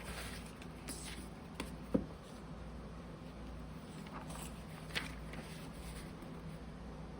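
Magazine pages being handled and turned: a few soft paper rustles and light taps, over a faint steady hum.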